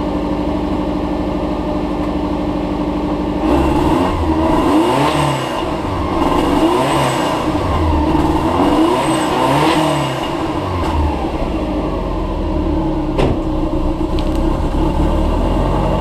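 Subaru Forester's GT35/TD04 twin-turbo flat-four engine idling, then revved in several quick blips that rise and fall in pitch from about three and a half seconds in until about ten seconds, before settling back to a steady idle. It is heard at the tail through the stock diff-back exhaust.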